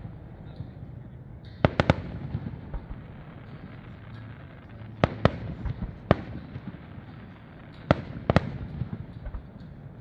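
Aerial fireworks shells bursting: sharp bangs every second or two, several in quick pairs, with a low rumble rolling on between them.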